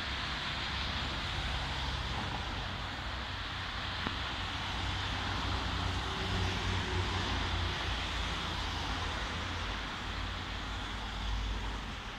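Road traffic noise from a city boulevard: a steady low rumble and tyre hiss of passing cars, swelling slightly around the middle and again near the end.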